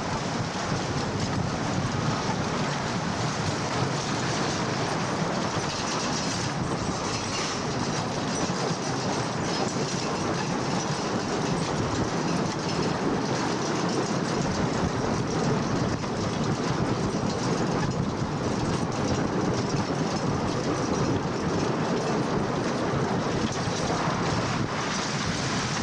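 Wooden side-friction roller coaster train running along its track, heard from on board: a steady rolling rumble and rattle of the cars on the wooden rails.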